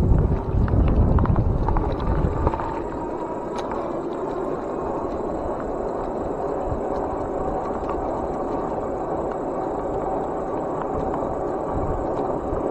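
Wind buffeting the microphone of an e-bike in motion, loud for the first two seconds or so and then easing off. After that comes a steady rolling noise with a faint, even whine.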